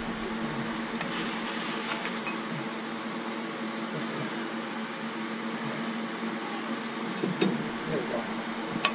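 A steady mechanical hum runs under faint clicks and knocks as a brake caliper and pads are worked into place over a disc rotor. A couple of sharper metal clicks come near the end.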